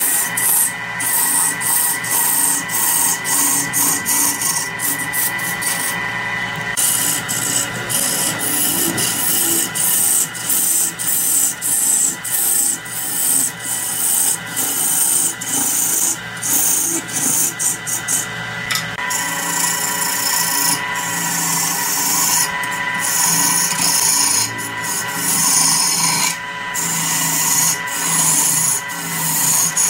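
Turning tool cutting a large block of wood spinning on a wood lathe: a continuous rasping scrape as shavings tear off, swelling and dipping as the tool bites.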